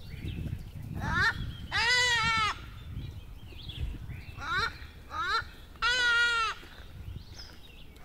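A bird calling loudly in nasal, many-overtoned notes: short rising notes about a second in and twice around the middle, and two longer, slightly falling calls about two and six seconds in.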